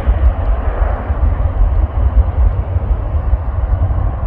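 Airbus A350's Rolls-Royce Trent XWB jet engines running as the airliner flares over the runway and touches down near the end: an even rushing noise over a heavy, uneven low rumble.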